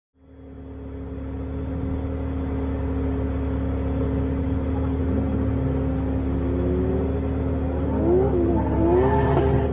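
Nissan 200SX drift car engine revving up and down over a steady hum, the pitch rising and falling more and more toward the end. The sound fades in from silence at the start.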